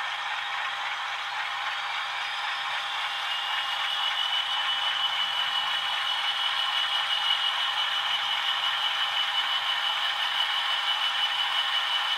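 Several OO gauge DCC sound-fitted model diesel locomotives running their idling diesel engine sounds together through small onboard speakers, thin and without bass. A steady high whine comes in about three seconds in and the sound gets slightly louder as one loco moves off.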